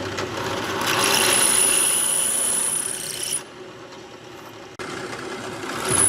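A tool working wood: a rough rubbing noise with a high steady whine over it. It drops away about three and a half seconds in, cuts off abruptly, then builds again near the end.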